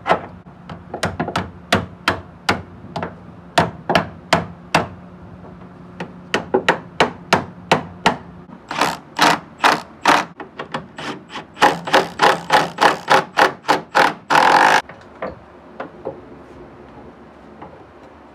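Milwaukee FUEL brushless cordless impact wrench driving strut-tower nuts on a Honda CRX in runs of short, sharp rattling blows. Near the end comes one longer unbroken burst lasting under a second.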